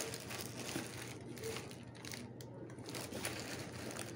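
Rustling and rubbing on a phone's microphone as the phone is handled close to her hair and clothes, with a few faint clicks.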